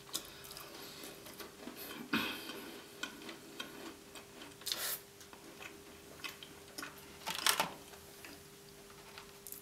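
Close-miked chewing of gingerbread with the mouth closed: small crunching clicks, with three louder crunchy bursts about two, five and seven and a half seconds in, over a faint steady hum.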